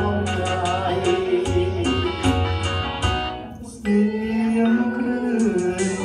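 Karaoke backing track with a steady beat and a man singing along into a microphone through a PA. The music dips briefly a little past halfway, then a long low note is held.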